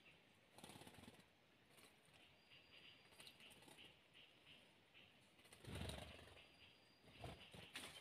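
Near silence: faint forest ambience with soft, rapidly repeated high chirps, broken by a few brief soft noises. The loudest comes about six seconds in.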